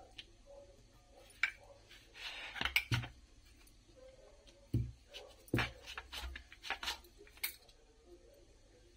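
Irregular clicks, knocks and a few dull thumps of hands working dough and a rolling pin on a marble rolling board, with bangles clinking on the wrist.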